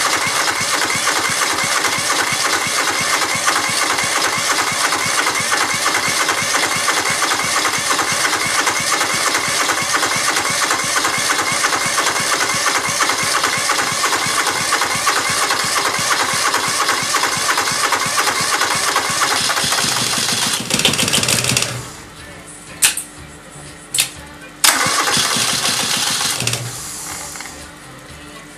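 A starter motor cranks a rebuilt Kubota Z482 two-cylinder diesel for about twenty seconds with the fuel cut off, so the engine turns over without firing to build oil pressure. The cranking stops, a couple of sharp clicks follow, and then there is a second, shorter burst of cranking.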